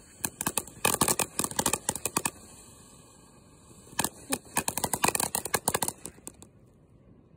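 Ground firework fountain crackling: a rapid run of sharp pops and crackles, then a quieter hiss, then a second burst of crackling about four seconds in that dies away near the end.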